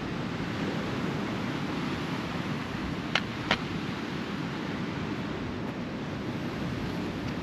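Steady wash of sea surf on a rocky shore, with some wind. Two sharp clicks, about a third of a second apart, come about three seconds in.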